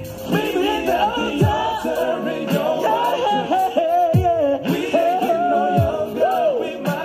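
Male R&B vocal group singing live, the voices gliding through long melodic runs over a slow backing track. Deep bass notes drop steeply in pitch several times.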